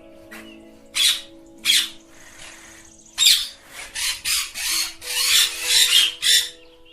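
Indian ringneck parakeets screeching: two single harsh screeches in the first two seconds, then a quick run of screeches from about three seconds in.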